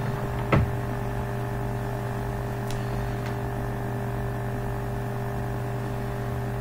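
Steady electrical hum: a low, even drone made of several fixed tones, with a brief falling swoosh about half a second in.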